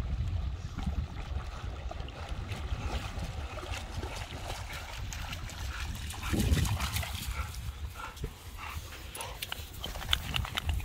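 American bulldog wading and splashing through shallow river water, carrying a stick. Wind rumbles on the microphone throughout. The splashing grows denser in the second half, and near the end the dog shakes water off its coat with a quick spatter of droplets.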